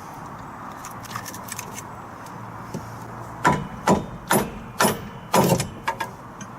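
Metal tools and car parts being handled: light clicks, then about five sharp metallic clanks and knocks in quick succession near the middle.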